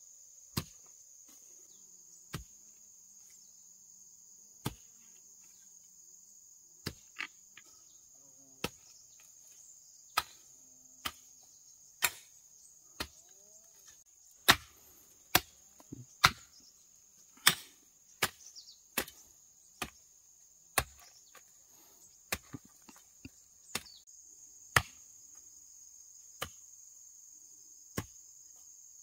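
Sharp single knocks at irregular intervals, a few seconds apart at first, then closer together and louder from about a third of the way in. Behind them is a steady high-pitched chorus of insects.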